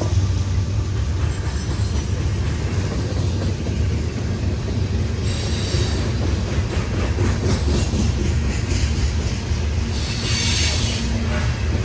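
Freight train rolling past, a steady low rumble of the cars on the rails, with brief high-pitched wheel squeal about halfway through and again near the end.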